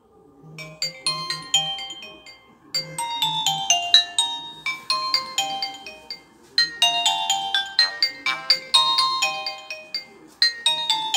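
Nokia 100 mobile phone ringtone: a multi-note melody of short, quickly decaying notes in repeating phrases about two seconds long, starting about half a second in.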